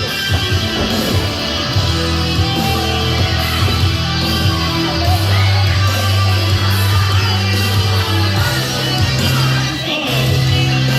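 Loud rock or heavy metal music with electric guitar and drums.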